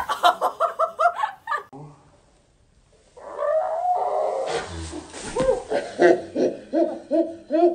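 A girl laughing in quick, repeated bursts, two bouts with a short pause between them. About halfway through there is a soft thud as she lands in loose hay.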